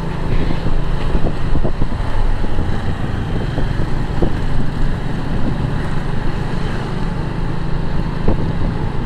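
Motorbike riding on a road, its engine running under wind rushing over the microphone, with other road traffic around.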